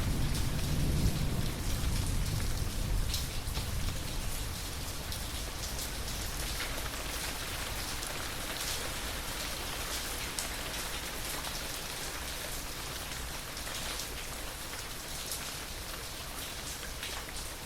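Steady rain falling, with many fine drop patters. The low rumble of thunder dies away over the first few seconds.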